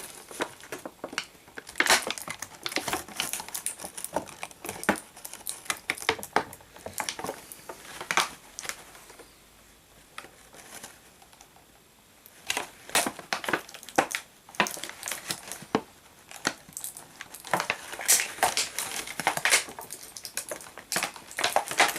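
Stiff clear plastic packaging crackling and crinkling as it is bent and pulled apart by hand to free a figure's accessory hand. The crackles come irregularly, with a quieter pause of a few seconds about halfway.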